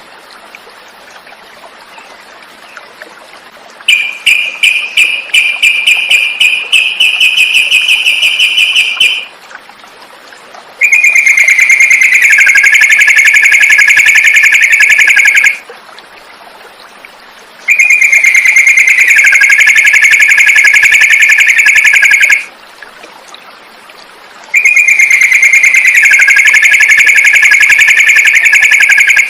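Recorded song of a yellow-vented bulbul (trucukan): a quick run of repeated notes, then the same long, loud, fast-trilled phrase three times with short pauses between, dipping in pitch partway through each.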